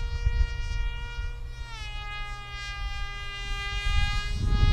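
Electric motor and propeller of a 3D-printed RC flying wing whining steadily in flight, the pitch dropping a step about two seconds in.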